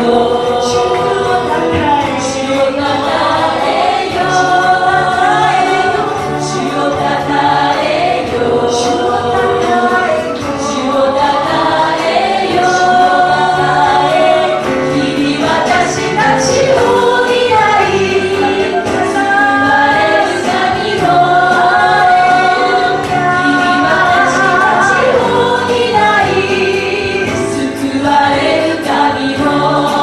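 A worship team of mostly female voices singing a Japanese praise chorus in unison, accompanied by piano and guitars, with light percussion hits keeping the beat.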